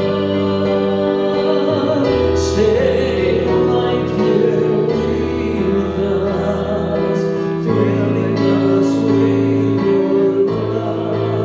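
Church worship music: voices singing a song over instrumental accompaniment, with sustained low bass notes that change every couple of seconds.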